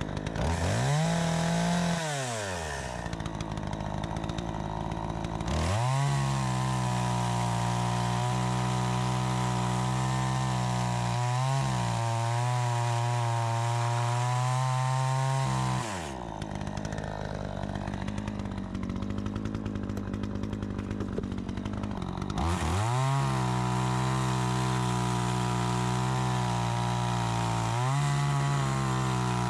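Troy-Bilt 20-inch two-stroke gas chainsaw, its carburetor freshly adjusted, revving: a quick blip at the start, then idling, then held at high revs for about ten seconds with a brief dip, back to idle, and revving up again for the last several seconds.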